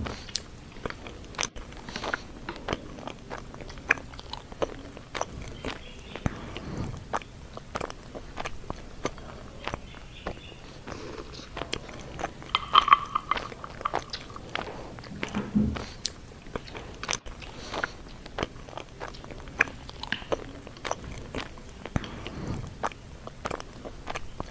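Close-miked eating: chewing and biting with wet mouth clicks, and wooden chopsticks and a spoon tapping a bowl and a can. A brief louder clink comes about halfway through.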